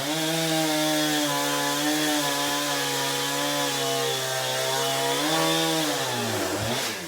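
Chainsaw running at high revs cutting through a couch, a steady engine note that drops in pitch as the throttle is let off near the end.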